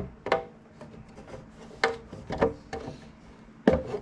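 Parts of a Photon Mono resin printer being handled and set in place, giving about five irregular knocks and clacks, the loudest near the end.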